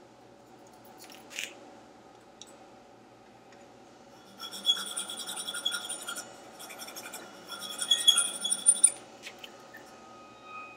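Hand file scraping the edge of a wooden jig's hinge opening to fit the hinge tightly, in two spells of quick back-and-forth strokes about four and eight seconds in, with a thin metallic ring from the file.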